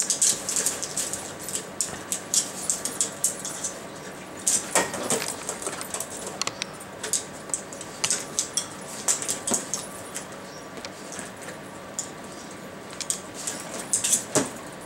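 Small hard-plastic IQ Treat Ball being nosed and rolled by a dog, with the dry treats inside rattling and clicking irregularly as it tumbles.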